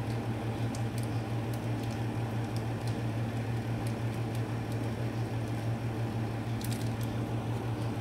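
Cheese sauce squeezed by hand out of a foil pouch into a pot of macaroni: soft squishing with faint scattered crinkles. A steady low hum runs throughout.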